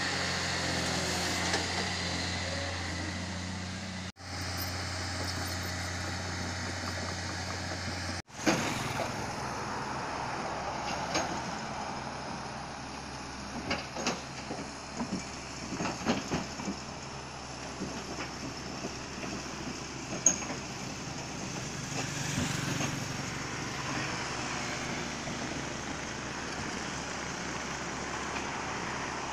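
Cat 320C hydraulic excavator's diesel engine running with a steady hum, then the excavator climbing onto a steel trailer ramp, its engine working under load with scattered clanks and knocks from the steel tracks on the ramp.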